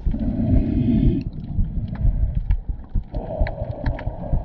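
Muffled underwater sound from a camera held just below the surface, with water rushing and churning as the diver swims, and scattered small clicks and crackles.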